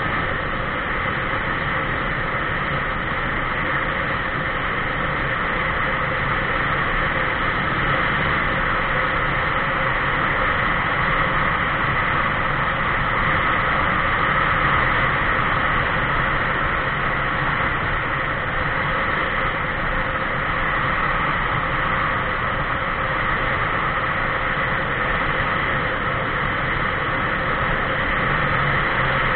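Steady rush of wind and road noise with a constant drone, heard from a camera mounted on a vehicle cruising along a highway.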